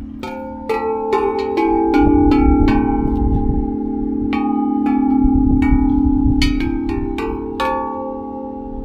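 Large aluminium tubular chimes struck one after another with a mallet, about twenty strikes at an uneven pace with a short gap about three seconds in. Each tube rings on with a long, steady tone, so the notes pile up and overlap.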